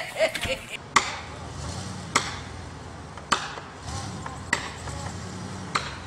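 Five sharp strikes on wood, about one every 1.2 seconds, like an axe chopping into a tree trunk. Underneath, a vehicle engine runs low, rising and falling in pitch.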